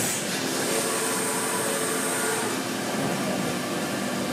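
CNC vertical mill running under flood coolant: the spindle turns an end mill cutting into a block clamped in the vise, with a steady hiss of coolant spray and a few steady machine tones. A high whine sounds in the first couple of seconds and then fades.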